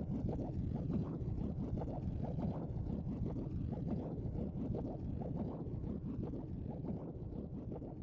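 A low, muffled rumble that slowly gets quieter towards the end.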